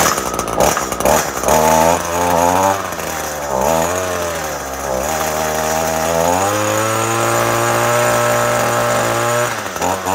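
Echo PAS-225 two-stroke power head running just after a cold start. It is ragged for the first second or so, then its pitch sags and recovers a few times before it settles into a steady note about six seconds in.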